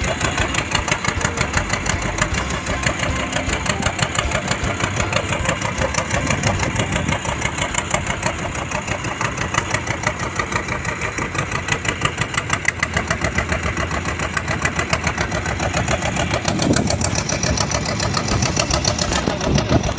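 Boat engine running steadily at close range, with a fast, even knocking beat.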